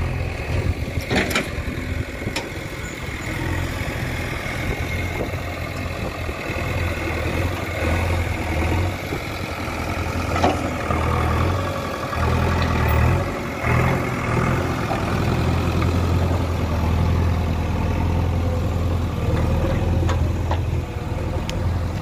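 JCB 3DX backhoe loader's four-cylinder diesel engine running steadily, with a few sharp knocks over it.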